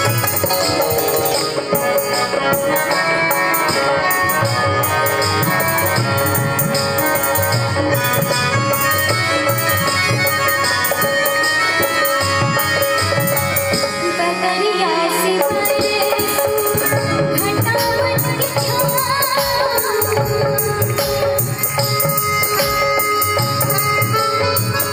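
Bhojpuri-style folk song music with a steady percussion beat running through it.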